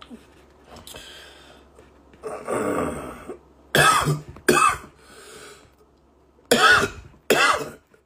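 A man clearing his throat about two seconds in, then coughing twice in quick succession, and twice more a couple of seconds later.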